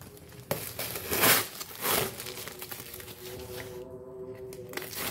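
Packaging being opened by hand: three loud crinkling, tearing rustles in the first two seconds, then quieter rustling handling.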